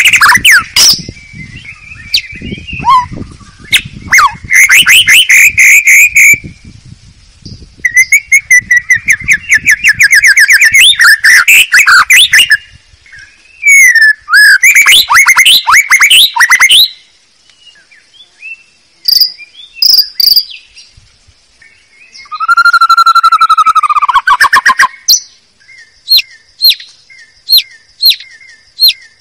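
White-rumped shama (murai batu) song played as a trapping lure recording: loud bursts of rapid trills and varied whistled phrases with short pauses between them, and a string of quick sharp ticks, about two a second, near the end.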